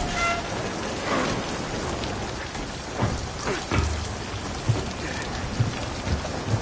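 Film sound effects of a rainstorm: steady heavy rain with rumbling thunder and deep low booms recurring every second or so, plus a few sharp cracks about three seconds in.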